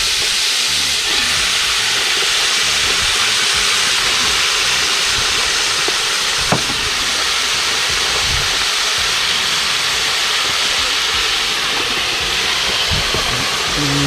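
Crab pieces frying in hot oil with ginger and garlic: a loud, steady sizzle, with one brief knock about halfway through.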